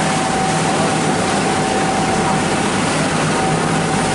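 Steady engine drone with a constant whine above it, unchanging in level and pitch.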